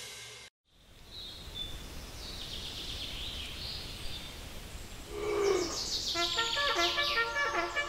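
Outdoor ambience with birds chirping, after a drum-backed music track dies away and cuts to a moment of silence. About six seconds in, a brass-led tune of held notes begins over the birds.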